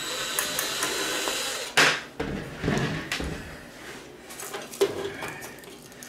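Cordless drill/driver whirring for about two seconds as it backs out a screw, then a sharp clunk followed by light knocks and rattles of parts being handled.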